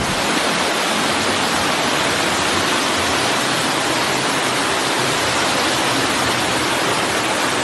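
Steady, even hiss of rushing water, like floodwater streaming through a building.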